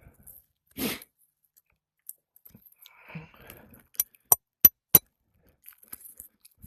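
Four quick sharp metallic clinks of a hammer striking a roof snake nailing tool, setting a roofing nail under an overlying shingle. They are preceded by a short scrape about a second in.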